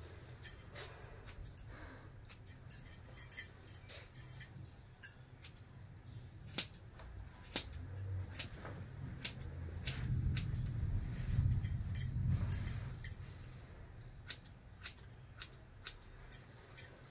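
Hair-cutting scissors snipping long hair, a string of short, irregular metal clicks. A low rumble swells for a few seconds in the middle.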